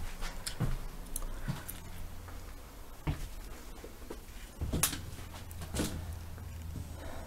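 Irregular footsteps and knocks as someone moves through an empty room, with the camera being handled; the loudest is a thump just under five seconds in, over a low steady hum.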